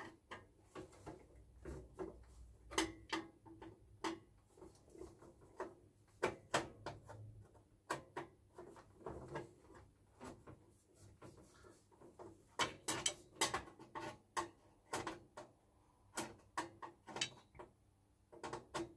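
Irregular clicks, taps and knocks of hands and tools working inside the open sheet-metal case of a CCTV monitor, with a busier run of knocks about two-thirds of the way through.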